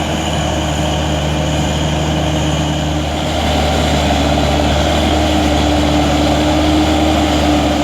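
Diesel engine of a Timberjack 230 forestry forwarder running steadily: a low drone with a steady higher whine above it, getting slightly louder about three and a half seconds in.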